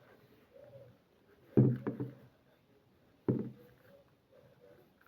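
Two dull thumps about a second and a half apart, each dying away within half a second, over faint background noise.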